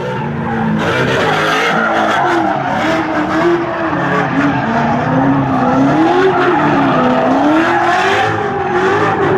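A car engine with its revs rising and falling again and again, over a hiss like tyre squeal.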